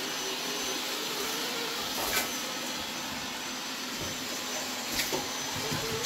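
Qihoo 360 robot vacuum running steadily while mopping a wood floor, its suction fan giving an even hiss with a faint high whine. There are a few brief clicks about two seconds in and again near five seconds.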